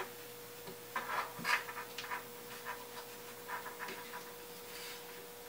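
Faint rustling and light clicks of hands handling a battery temperature sensor's cable and plug among heavy inverter cables, over a steady faint hum.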